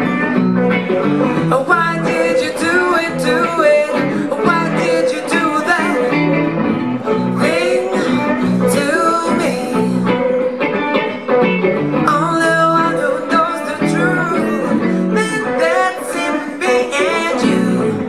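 A woman singing into a microphone, accompanied by electric guitar, in a live band performance.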